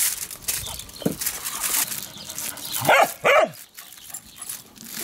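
A dog barks twice in quick succession about three seconds in, each bark dropping in pitch, with a fainter yelp earlier. Aluminium foil crinkles briefly at the start as it is folded.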